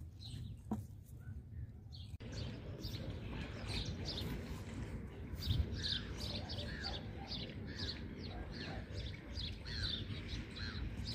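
Many birds calling in a dense run of short chirps over a steady low rumble, starting about two seconds in.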